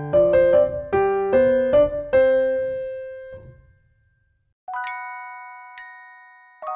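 Background music: a light piano melody ends on a held note and fades out. After a short silence, chime-like bell notes are struck about once a second, each ringing and fading away.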